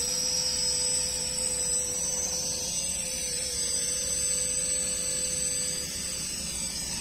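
Small toy quadcopter drone's propellers whining steadily in flight, one high even pitch. It grows a little quieter near the end as it flies away.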